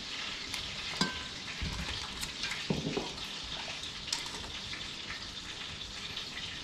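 Metal tongs stirring through thick chilli sauce in a steel stockpot as crab pieces are lifted out, with several sharp clinks and knocks of the tongs against the pot over a steady hiss.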